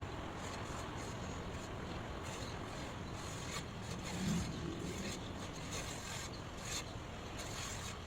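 Steady rushing white noise, with a brief low hum about four seconds in.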